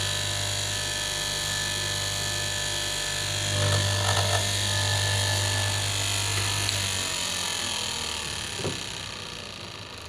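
KM straight-knife fabric cutting machine running with a steady motor hum, then switched off about seven seconds in, its motor winding down and fading out.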